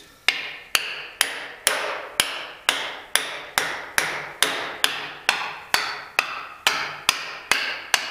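A hammer striking wedges driven into a yellow pine log, steady blows about two a second, each with a short ring. The wedges are splitting the log along its length to crack a slab loose.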